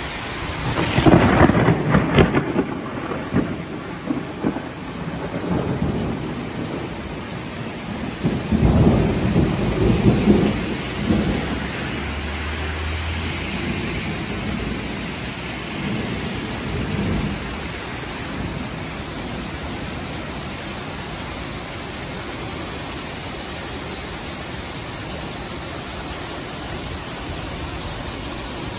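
Heavy summer rain falling steadily, with thunder rumbling about a second in and again about nine seconds in, and a fainter rumble a little later.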